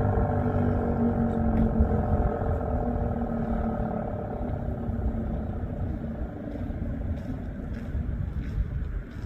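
ACA Penetrator-15 tornado siren, with its 15 HP three-phase motor and 8-port chopper, winding down at the end of its steady alert tone: the tone slides slowly lower and fades over the first few seconds. After that, a low rumble of wind and traffic noise remains.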